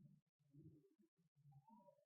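Near silence: a faint low background murmur, cut by brief drop-outs, with a few faint short chirps near the end.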